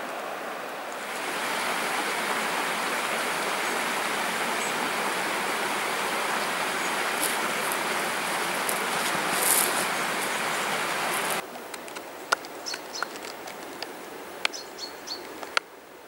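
Steady rushing of running river water for about ten seconds, cutting off abruptly to a quieter outdoor background with scattered sharp clicks and a few faint bird chirps.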